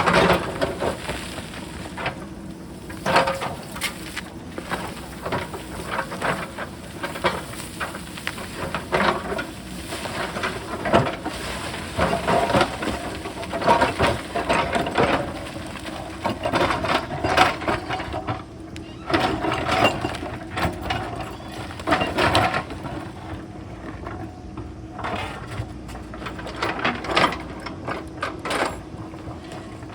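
JCB backhoe loader's diesel engine running steadily while its bucket scrapes and knocks against stone, with repeated clattering of rocks throughout.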